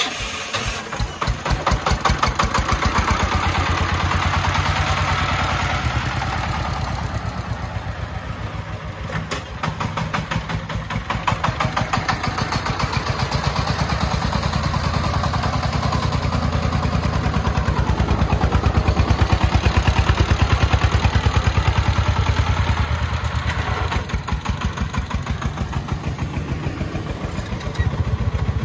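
Single-cylinder diesel engine of a brick-laden three-wheeled công nông truck running under load as it drives off, with a steady, rapid beat of firing strokes.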